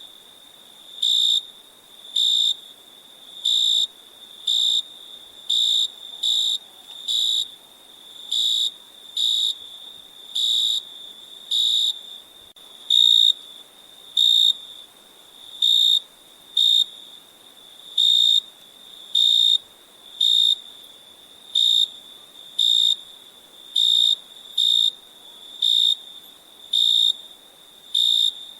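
Crickets chirping: one loud cricket gives short chirps about once a second over a fainter steady trill from other crickets at the same high pitch.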